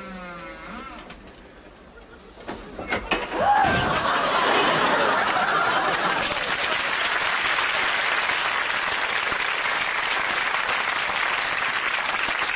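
Audience laughing and applauding, starting loud about three and a half seconds in and carrying on steadily, after a brief voice and a few sharp knocks.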